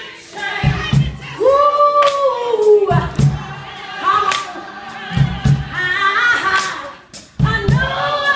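A woman singing gospel, holding long notes with a slide in pitch, over low beats and sharp hand claps.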